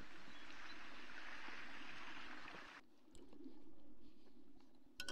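Soft, steady wash of water, which drops away abruptly about three seconds in, leaving a fainter background with a few small ticks.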